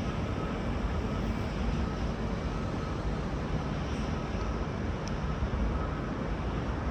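V/Line VLocity diesel railcar engines running with a steady rumble at the platform, with a faint short beep repeating about once a second over it.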